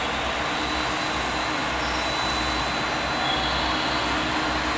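Diesel engine of a KiHa 40-series railcar running as the railcar moves slowly: a steady drone over a low, throbbing rumble.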